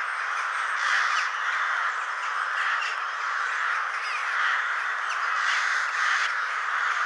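Ravens calling: a continuous mass of harsh, raspy caws, with short higher bird calls cutting through now and then.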